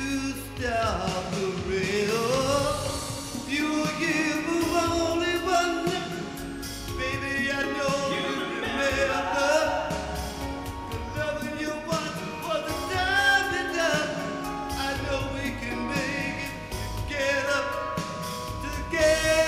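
Music: a slow song with a lead voice singing long, sliding vocal runs over a steady bass line.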